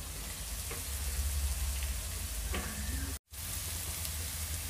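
Chopped onion, carrot and capsicum sizzling steadily in oil in a wok, with the sound cutting out for a moment about three seconds in.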